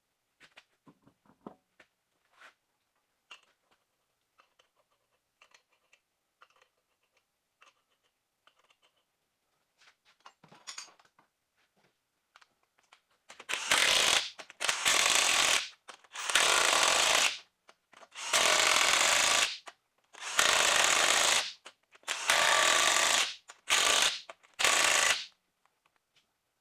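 Cordless impact wrench running the lug nuts onto a truck's front wheel, in a string of about eight bursts, each about a second long, with short pauses between them. Before that, quiet clicks and knocks of the wheel being hung on the hub and the nuts started by hand.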